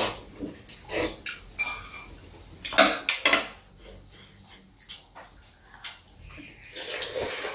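Metal chopsticks and spoons clicking against ceramic bowls during a meal of ramen-noodle army stew, a string of short clicks in the first few seconds. A longer noodle slurp comes near the end.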